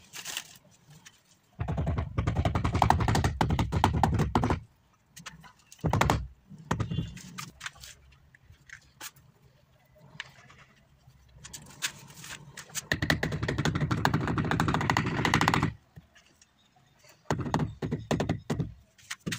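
Rubber mallet tapping ceramic wall tiles to bed them into the adhesive: two long runs of rapid blows, with a few single knocks between them and near the end.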